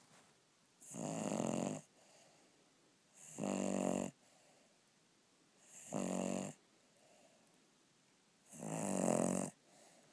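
Snoring: four long snores, about one every two and a half seconds, each a pitched, rattling breath with a hiss on top, and quiet breathing between them.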